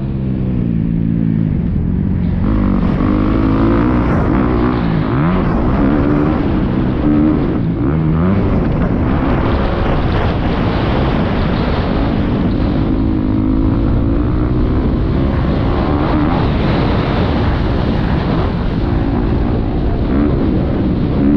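Motocross bike engine heard from the rider's helmet, revving up and down over and over as it is ridden around a dirt track.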